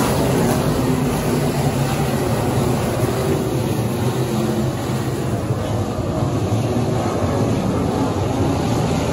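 Engines of a field of limited modified dirt race cars running together around the track: a steady mix of several engines at once.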